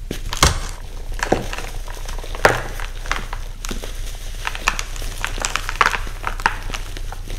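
Hands crushing a dyed, pressed baking soda dome. Sharp crunches come as it breaks, the loudest about two and a half seconds in, then a run of small dry crackles as the powdery chunks crumble between the fingers, over a low steady hum.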